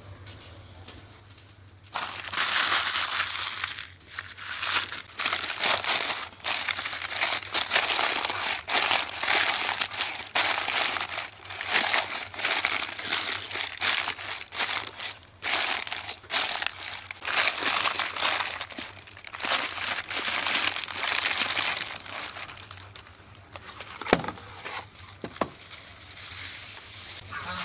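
Parchment paper crinkling and rustling in irregular handfuls as it is folded and pressed around a whole raw goose on a metal tray, starting about two seconds in and dying down near the end. A couple of sharp clicks near the end.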